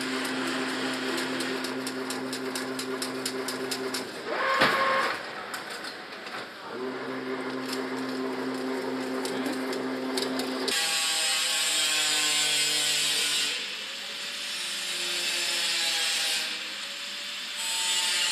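Automatic chain link fence machine running: a steady motor hum with rapid clicking from the wire-weaving mechanism. A brief louder burst comes about four and a half seconds in, and near eleven seconds the hum gives way to a hissier mechanical noise.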